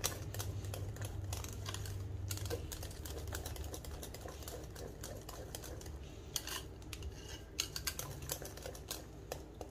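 Wire whisk beating thick hung curd and powdered sugar in a glass bowl, the wires clicking quickly and irregularly against the glass, with a few sharper clicks in the second half. A low steady hum sits underneath.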